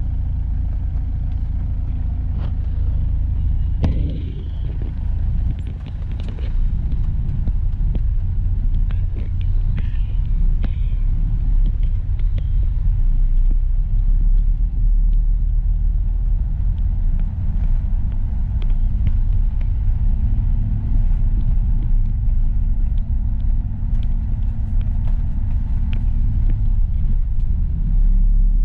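Low, steady rumble of a Mitsubishi Pajero on the move, engine and road noise together, with scattered light clicks.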